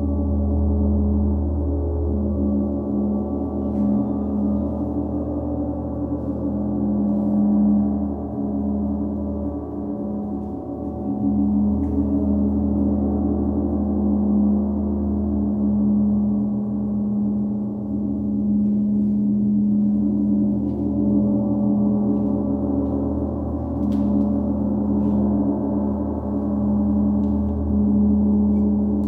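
Large hanging gong played continuously with a mallet: a deep, sustained wash of overlapping ringing tones that swells and ebbs as it is kept sounding.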